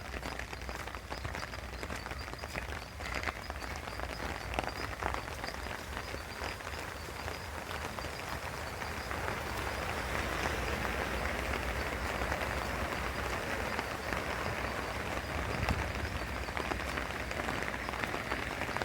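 Small stream running: a steady hiss of water that grows a little louder about halfway through, with scattered light ticks and a faint high steady tone above it.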